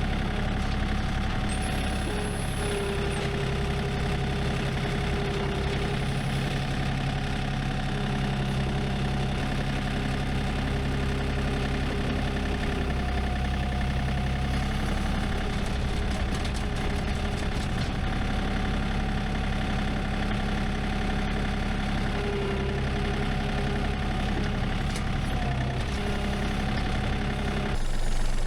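New Holland Workmaster tractor's diesel engine running steadily while pulling a hay baler in the field. The sound changes abruptly near the end.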